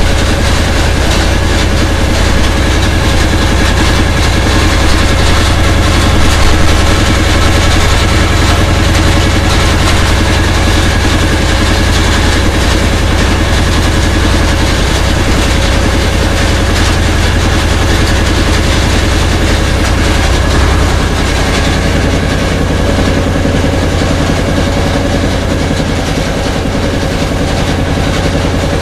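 Engine of a small wooden river boat running loud and steady under way, a deep hum with water rushing past the hull; it eases slightly about two-thirds of the way through.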